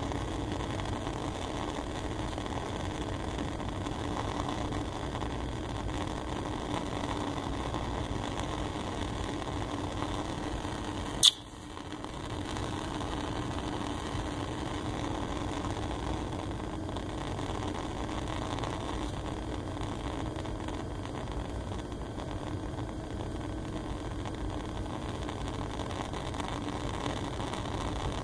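Steady rushing hiss with a low hum, from a lit Bunsen burner's gas flame and lab ventilation. A single sharp click about eleven seconds in, after which the level dips briefly.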